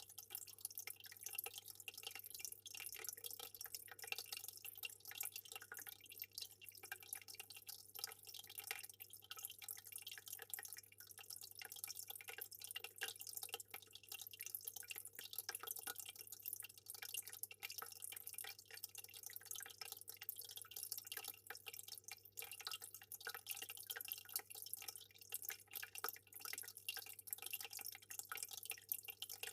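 Aquarium water trickling and bubbling, a dense, irregular patter of small drips and splashes, over a faint low steady hum.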